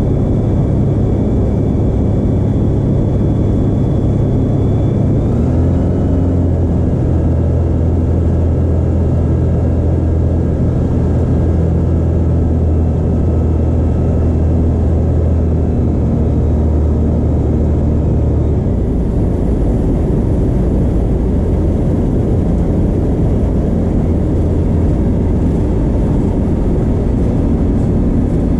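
Rotax 912 flat-four engine and propeller of a Skyranger microlight, heard from inside the cockpit, running with a steady drone that drops in pitch about five seconds in. About two-thirds of the way through the steady tone gives way to a rougher rumble as the wheels touch down and roll on the grass strip.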